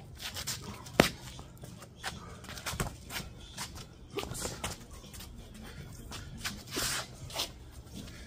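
Kickboxing sparring: gloved punches and kicks landing, the loudest a sharp smack about a second in, with several lighter hits and short hissing breaths. Feet shuffle on concrete pavers.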